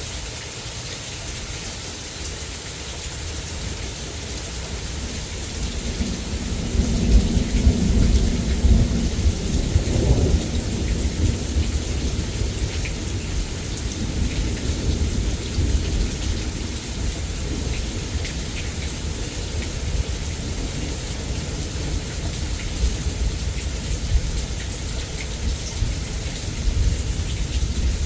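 Rain falling steadily through a thunderstorm, with a long roll of thunder. The thunder builds about five seconds in, is loudest a few seconds later, and keeps rumbling more softly under the rain after that.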